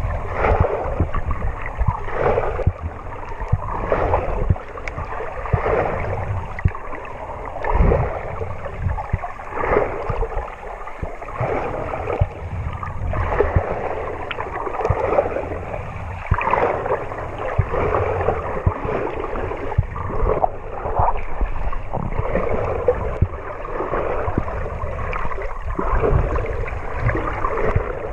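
Sea water heard underwater: a muffled rushing and gurgling that swells and surges irregularly every second or two as the swimmer moves through the water.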